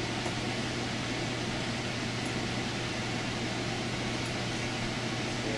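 Steady low machine hum under an even hiss, with a faint high tick about every two seconds.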